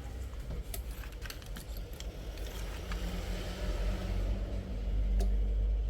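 Light clicks and small rattles from a phone and tools being handled on a workbench, over a steady low hum.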